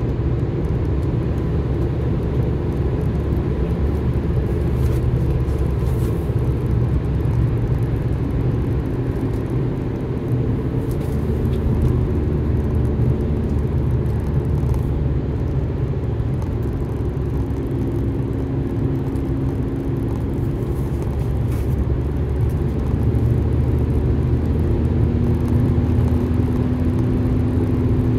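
Car driving at steady speed on a paved road: a continuous low rumble of engine and tyres, with a faint engine hum that drifts slightly up and down in pitch, heard from inside the cabin.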